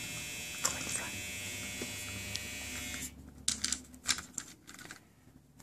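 Small battery motor of a Chubby Puppies toy dog buzzing steadily for about three seconds, then cutting off, followed by a few light plastic clicks of handling.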